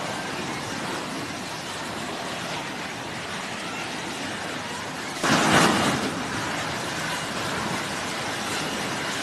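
Steady rushing noise of an F-35C's jet engine in flight. About five seconds in it swells louder for about a second.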